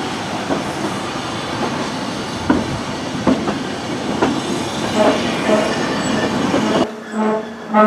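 Lynton & Barnstaple Railway narrow-gauge train running, a steady rumble with irregular clicks from the wheels on the track. About seven seconds in the sound cuts abruptly to music with a pulsing low note.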